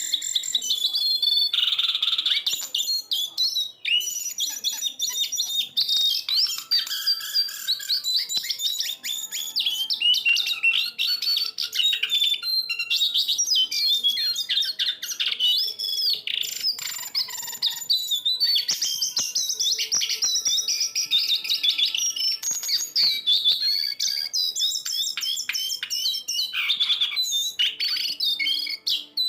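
A jongkangan coklat songbird singing a continuous, rapid, varied string of high chirps and trills, with barely a pause. It is the kind of song used to challenge other cage birds and set them off.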